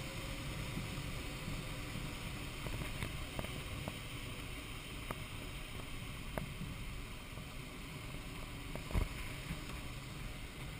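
Steady rush of airflow past a glider in flight, heard inside the cockpit, with a few faint clicks and a short low thump about nine seconds in.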